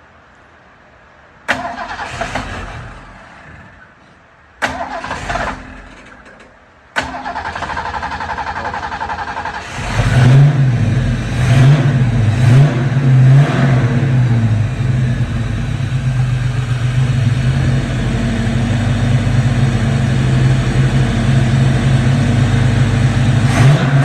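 A carbureted car engine with a freshly fitted distributor and new spark plugs being started: two short tries that die away, then cranking that catches about ten seconds in. It revs up several times and settles into a steady fast idle.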